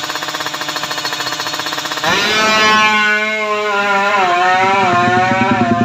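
Tuned Kawasaki Ninja motorcycle engine running with a fast pulsing rattle, then revved about two seconds in, its pitch rising and wavering up and down with the throttle.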